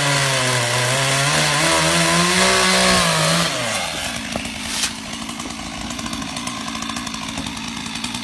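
Two-stroke chainsaw running hard at high revs with a wavering pitch for about three and a half seconds, then dropping to a lower, steadier running. A single sharp crack comes about five seconds in.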